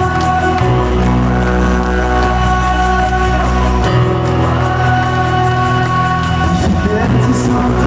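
Live pop-rock band playing loud through an arena PA: held chords over bass and drums with a steady cymbal beat. The bass moves to a new note about every three seconds.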